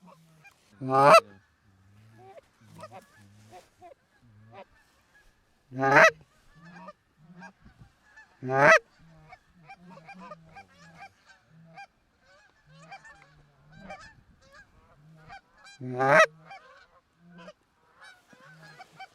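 Canada geese honking as a flock works in toward the decoys: steady fainter honks and clucks throughout, with four loud, close honks about a second in, around six and nine seconds, and near sixteen seconds.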